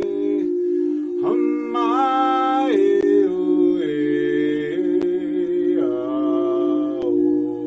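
Singing bowl rubbed around its rim with a mallet, giving a steady ringing tone with a regular pulsing waver. Over it, a man sings long held vowel notes that step between pitches, with the upper overtones strong.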